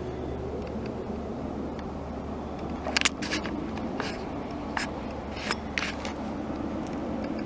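Steady low engine drone, with a few sharp clicks or knocks between about three and six seconds in.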